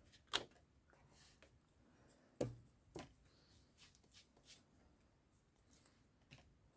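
Three sharp knocks on a tabletop, the second about two and a half seconds in being the loudest with a low thump, among faint paper rustling: a clear acrylic stamping block being set down and pressed onto card stock.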